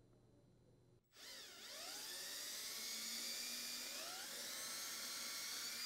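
Cordless drill boring a hole into a 3/4-inch wood dishwasher door panel: the motor spins up about a second in, its pitch rising, then runs steadily under load and stops at the end.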